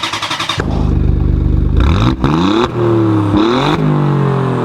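Car engine starting, the starter cranking briefly before it catches, then blipped twice with the revs rising and falling back.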